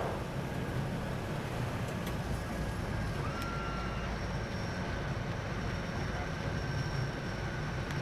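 Cockpit noise of a de Havilland Canada DHC-6-300 Twin Otter: its two Pratt & Whitney PT6A turboprop engines and propellers running steadily, with a thin high turbine whine over the drone.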